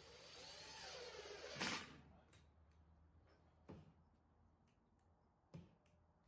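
Faint workshop handling noise: a scraping rub lasting about a second and a half that ends in a sharp click, then a few light taps.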